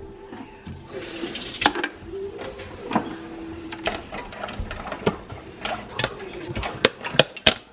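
A short rush of running water, with scattered clinks and knocks around it.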